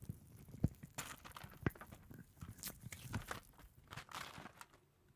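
Eggshell being peeled off an egg by hand: irregular small cracks and crackles with scratchy tearing of the shell, a few sharper snaps among them, dying down near the end.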